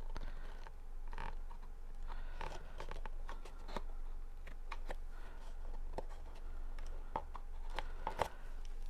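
Thick cardstock being handled and worked by hand: scattered small clicks, taps and rustles as the paper pieces are pressed and pushed. A steady low hum runs underneath.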